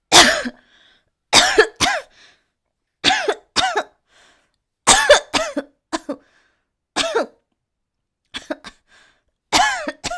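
A young woman coughing deliberately, about a dozen coughs in single hits and quick runs of two or three, spaced a second or so apart. They are performed coughs done on request, not a cold or illness.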